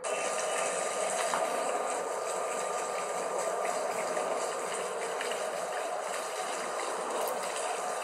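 Steady outdoor rushing noise with faint, steady high tones in it. It starts suddenly and cuts off suddenly.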